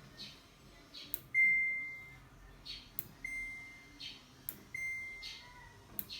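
Samsung front-load washing machine control panel beeping as it is operated: a click followed by a short steady beep, three times about a second and a half apart, the first the loudest.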